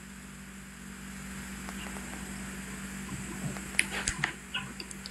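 Steady low hum and faint hiss of background room tone, with a few faint clicks about four seconds in.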